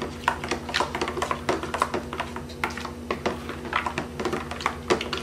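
Metal spoons stirring and scraping coloured slime glue in clear plastic bowls: an irregular run of quick clicks and taps as the spoons knock against the bowls, over a steady low hum.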